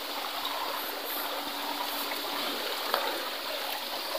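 Steady, even rushing hiss of moving water, like a stream or surf washing, with no pauses or distinct strokes.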